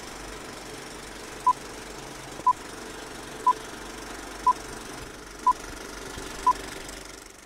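Film-leader countdown sound effect: a short, sharp beep once a second, six in all, over the steady rattling whir of a film projector. A brief higher blip comes right at the end.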